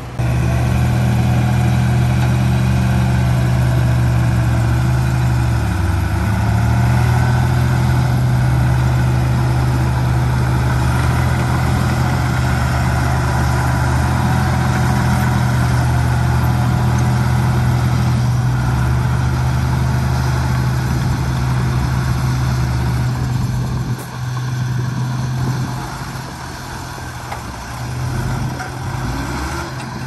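Diesel engine of heavy earthmoving machinery running steadily, with a brief dip in engine pitch about six seconds in and somewhat quieter over the last few seconds.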